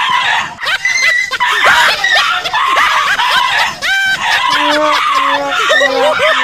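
Shrill screaming and laughing from a group of children, high-pitched and continuous. Near the end a held low tone sounds in three short pieces.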